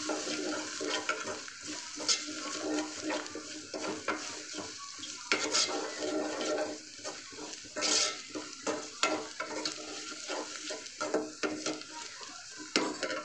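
Onions, green chillies and ground chilli, coriander and turmeric sizzling as they fry in oil in a metal pot. A metal spoon scrapes and clinks against the pot in an irregular stirring rhythm as the spiced onion base is sautéed.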